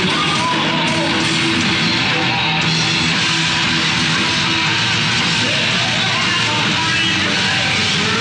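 A heavy metal band playing live: electric guitar, bass guitar and drums, loud and steady throughout.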